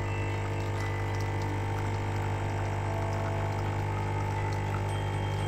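L'OR capsule coffee machine's pump running with a steady, even buzz while it brews a shot of coffee into a cup.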